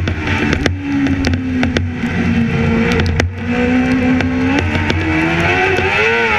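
Onboard sound of a racing sidecar at speed on a wet track: the engine is running hard, its pitch dropping about a second in, climbing again after about four and a half seconds and wavering near the end. Underneath is a steady hiss of tyre spray and wind, with scattered short clicks.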